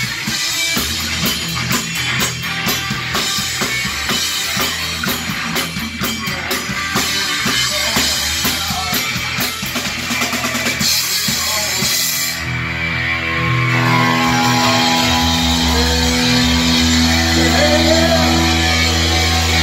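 Rock band rehearsal: a drum kit with cymbals and an electric guitar playing together. About twelve seconds in, the busy drumming thins out and steady, held notes take over.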